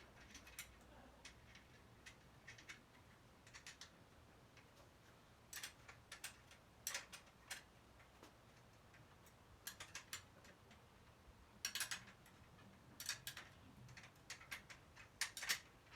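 Faint, irregular clicks and light metallic ticks from hand tools working on a bicycle wheel. About a dozen separate clicks are spread through it, a few of them coming in quick pairs.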